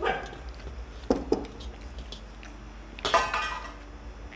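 Stainless steel plates and bowls clinking and knocking on the table during a meal eaten by hand: two sharp knocks about a second in, and a louder ringing clink about three seconds in.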